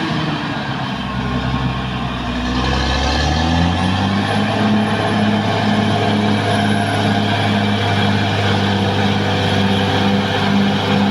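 Caterpillar D6R XL bulldozer's diesel engine working; its note drops about a second in and climbs back up a little before four seconds, then runs steady.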